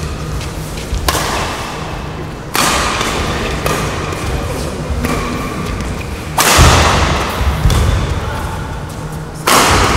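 Badminton rackets striking the shuttlecock during a doubles rally: several sharp, irregularly spaced cracks, each ringing on in the echoing gym hall, over a low steady hum.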